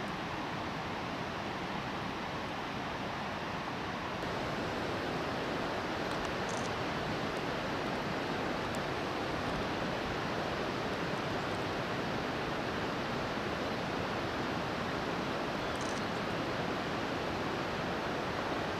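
Steady outdoor rushing noise with no distinct source, a little louder after about four seconds, and a couple of faint high ticks.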